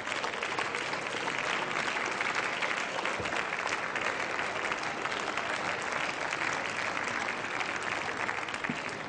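Members of parliament applauding, with many hands clapping in a steady, sustained round of applause.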